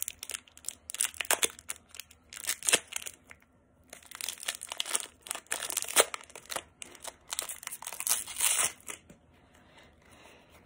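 Foil wrapper of a Pokémon trading card booster pack being torn open and crinkled by hand, in a run of irregular crackles that die away about nine seconds in.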